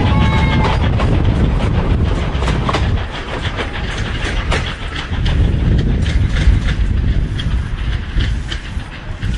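Passenger train hauled by a South African Railways class 19D steam locomotive rolling past, with a heavy rumble and wheels clattering over the rail joints.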